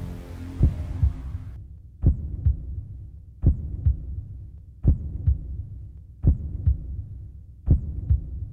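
Slow heartbeat, paired low thumps repeating about every second and a half, as a held music chord fades out in the first second and a half.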